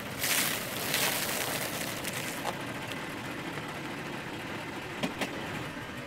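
A car tyre rolling onto a stack of puffed rice cakes and crushing them: two loud crunching bursts in the first second, then a few small cracks of crumbs, over a car engine running low.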